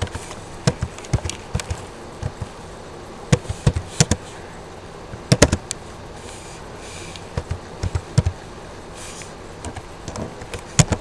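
Irregular sharp clicks of a computer keyboard and mouse, some in quick runs of two or three, over a low steady background hum.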